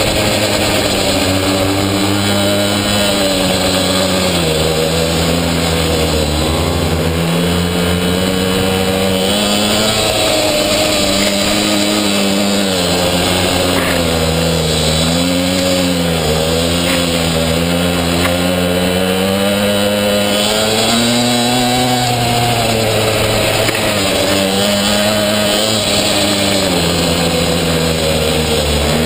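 Pocketbike's small two-stroke engine heard from on board, buzzing without a break, its pitch rising and falling every few seconds as the throttle is opened and eased off.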